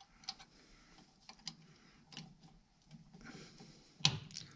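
Small metal clicks and taps of a clevis pin and clip being fitted by hand to a hydraulic valve spool's cable clevis, with a louder clack about four seconds in.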